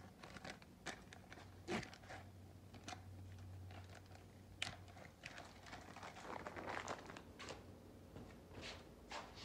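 Faint crinkling and rustling with scattered light clicks, from hands handling small parts and plastic packaging, over a steady low hum.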